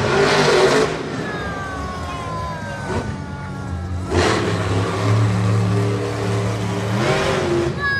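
Monster truck's supercharged V8 revving hard in three bursts: at the start, about four seconds in and about seven seconds in. Between the bursts it keeps running, with a whine that slowly falls in pitch.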